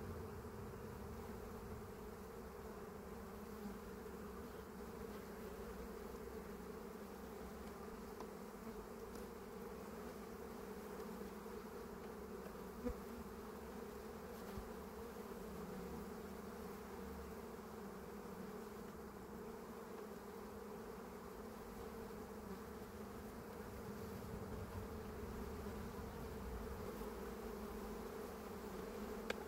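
Honeybee colony buzzing steadily from an opened hive as its frames are handled, an even drone with one brief faint knock about halfway through.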